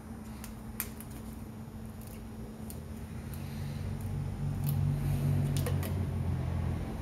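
Sharp plastic clicks of a plastic quart bottle of motor oil being handled and its screw cap twisted off. A low rumble swells through the second half and is the loudest sound.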